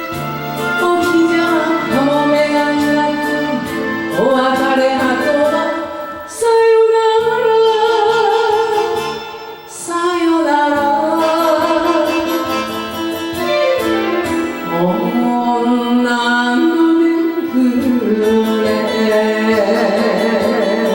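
Enka song: a voice singing long, wavering held notes over a karaoke backing track with strings.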